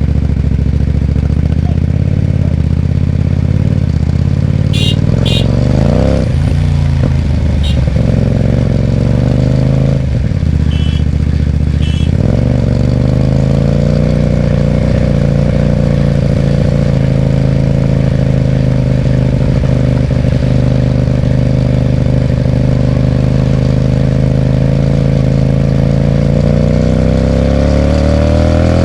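Hyosung GT250R's 250 cc V-twin with an aftermarket Ixxile racing exhaust, ridden: the engine note climbs about six seconds in, drops briefly near ten seconds, holds a steady pitch through the middle and rises again near the end. A few short high beeps come in over it in the first half.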